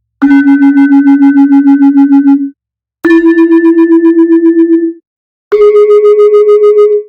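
Sampled Balinese gamelan bronze instrument playing three held notes, each a step higher than the last. Each note has a bright, bell-like ring and pulses about eight times a second, and each is cut off after about two seconds.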